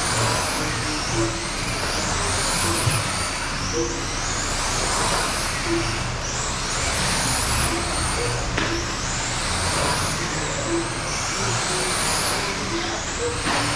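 Several radio-controlled sprint cars racing on a dirt oval, their motors whining high and sweeping up and down again and again as the cars accelerate out of the turns, over a steady noise of tyres on the dirt.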